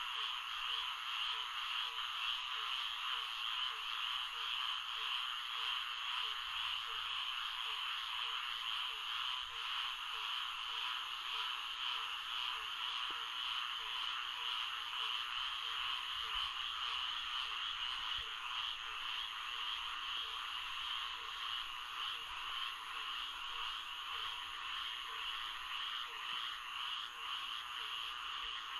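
Recorded Florida swamp chorus of frogs: a dense, steady mass of high calls, with a lower call repeating about twice a second through the first half.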